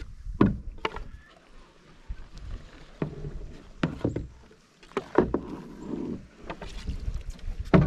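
Wooden canoe paddle pushed through shallow water and against the bottom and branches, moving a wooden canoe along: a series of irregular knocks and splashes, the sharpest one near the end.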